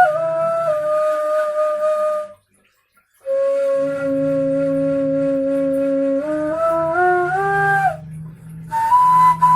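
Homemade PVC-pipe ney (end-blown flute) playing long, breathy held notes. After a brief pause about two and a half seconds in, a long low note climbs step by step, and a higher note starts near the end.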